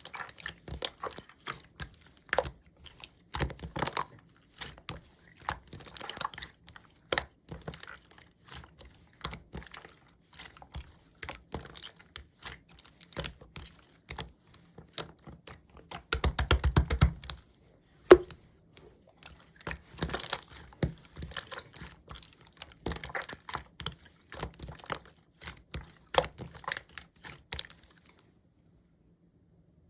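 Slime being squished, stretched and folded by hand: an irregular run of sticky clicks, crackles and small air-bubble pops, with a denser burst of squishing about halfway through and one sharp pop soon after. It stops a couple of seconds before the end.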